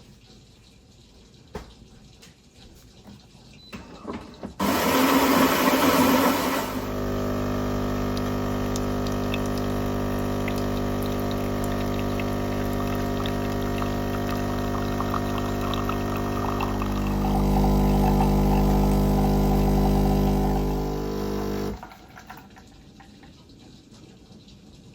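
Coffee machine making coffee: a loud rush of noise for about two seconds, then its pump hums steadily for about fifteen seconds. The hum grows louder and deeper near the end and cuts off suddenly.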